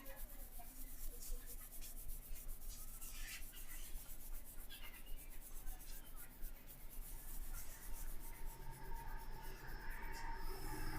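Hands massaging a person's head, rubbing through the hair and scalp in quick repeated strokes. A motor vehicle's engine hum grows louder near the end.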